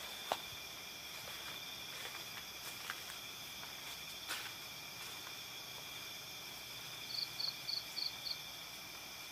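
Night chorus of crickets and other insects, a steady high-pitched trilling at several pitches at once. Near the end come five short, quick high chirps, and there are a few faint clicks.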